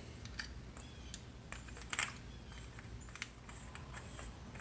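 Faint, scattered small clicks and rattles of plastic and metal parts from the opened mechanism of a Ridgid 18V finish nailer being handled and reset by hand, with the sharpest click about two seconds in.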